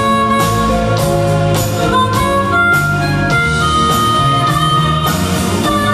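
Live band playing an instrumental: electric guitar, bass, drums and congas, with long held lead notes sliding between pitches on top.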